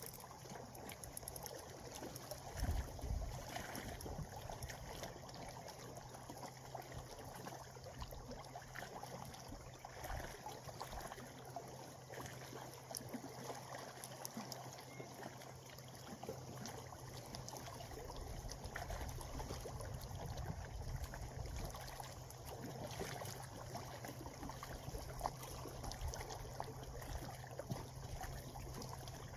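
Gentle water lapping and trickling at the shoreline, a steady wash with a few low thumps, the strongest about three seconds in.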